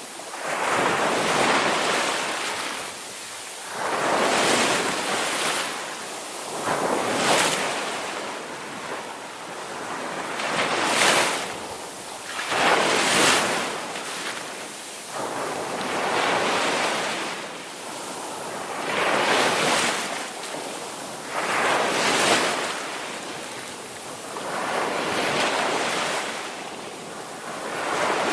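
Ocean waves breaking and washing in, about ten surges rising and falling every two to three seconds.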